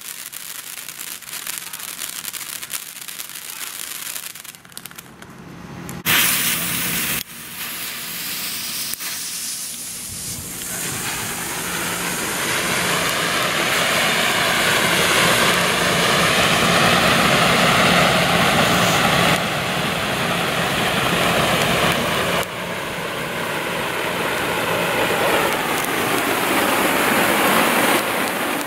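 Keystone Tomahawk rocket fountains, ground firework fountains, burning with a steady hissing rush of sparks. A short louder blast comes about six seconds in. From about ten seconds in the rushing hiss is louder and fuller.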